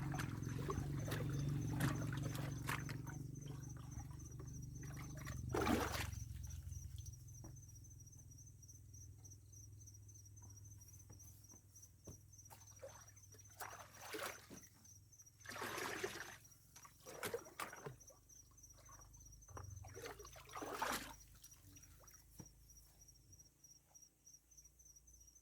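Insects chirping in a steady, high pulsing trill, over a low rumble that fades out about seven seconds in, with several brief noisy sounds scattered through.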